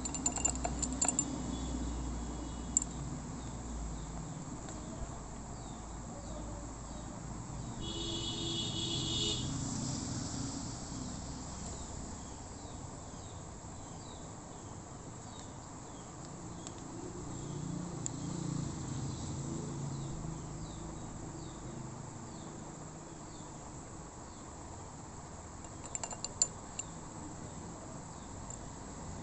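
Crickets chirping, a steady run of short repeated chirps over a low background hum. A short pitched tone sounds about eight seconds in, and a few light clicks come near the start and near the end.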